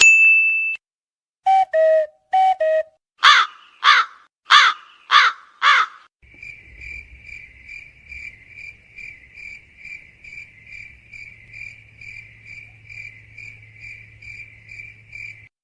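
A string of comedy sound effects. A short ding is followed by two falling two-note calls, then five crow caws. After that a cricket chirps steadily, about twice a second, over a low hum for the last nine seconds, the stock 'awkward silence' gag.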